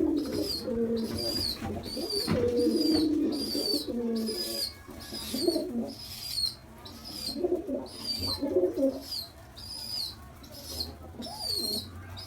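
Baby pigeon (squab) begging for food with a steady run of short, high squeaking calls, about one and a half a second, a sign that it is still hungry. Lower coo-like sounds run underneath, mostly in the first half.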